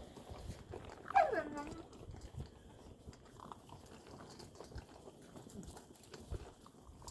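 A puppy gives one short whine that falls in pitch, about a second in, over faint chewing and crunching from puppies eating kibble out of a bowl.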